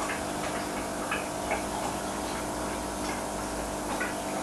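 Aquarium pump humming steadily, with small irregular ticks about once a second over a faint watery hiss.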